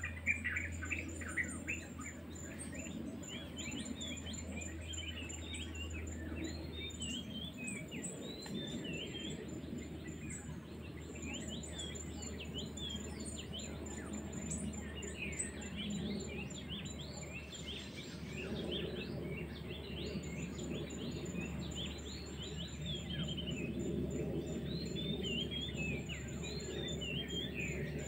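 Many small birds chirping, a dense run of short chirps, with an insect's steady high pulsing trill underneath.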